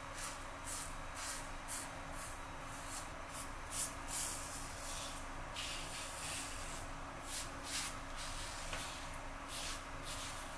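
Merkur 34G double-edge safety razor scraping through stubble in short, irregular rasping strokes, a few a second, with one longer stroke a little past the middle.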